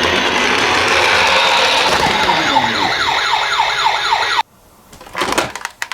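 Electronic sirens of toy ambulance minicars sounding over a loud, dense noise, one siren a fast yelp of quickly falling sweeps. It all cuts off suddenly about four and a half seconds in, followed by a few clicks and knocks.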